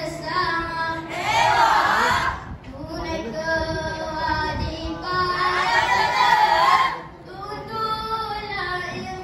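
Boys' voices singing dikir barat, the Malay group chant, with two louder sung phrases about a second and a half in and about six seconds in.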